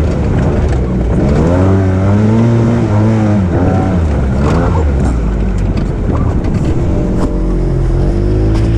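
Arctic Cat Wildcat side-by-side's engine running under throttle on the trail, its pitch rising and falling several times as the gas is eased on and off, then holding a steadier note near the end.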